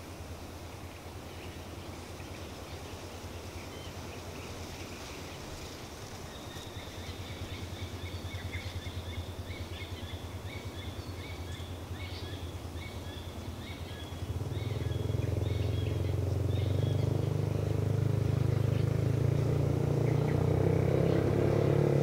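Birds chirping in quick runs of short, repeated high notes over a steady low droning rumble. The rumble grows noticeably louder about two thirds of the way through and becomes the loudest sound.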